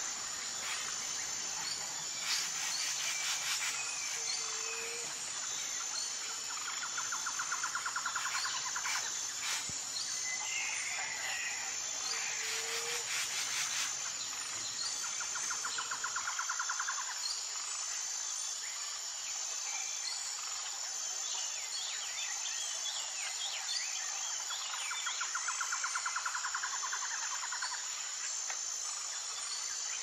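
Forest ambience: a steady high-pitched insect drone runs throughout. Over it a rapid pulsing trill comes and goes every few seconds, with scattered bird chirps and calls.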